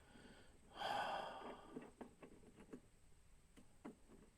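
A frustrated person's sigh about a second in, a long breathy exhale. It is followed by a few faint light clicks and taps of small parts being handled.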